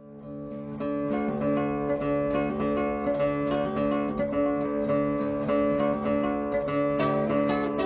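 Music of acoustic guitar being picked and strummed, with notes ringing on.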